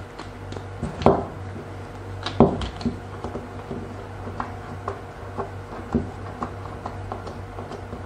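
Plastic clicks and light knocks from an RJ45 network plug and its waterproof cap being fitted to an outdoor PoE extender's port. There are two sharp clicks about one and two and a half seconds in, then a run of lighter ticks, over a steady low hum.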